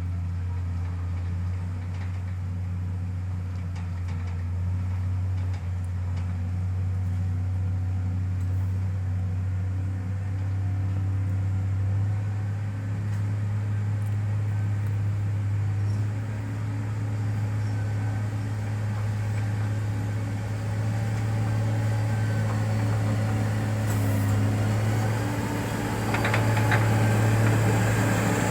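Heavy diesel engine of road-construction equipment running steadily, a low drone that steps up slightly in pitch a few times and grows a little louder near the end.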